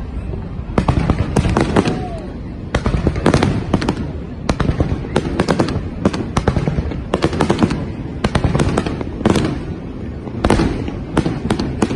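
Fireworks display: clusters of sharp bangs and crackles in quick succession, a new volley about every second or so, over a continuous low rumble.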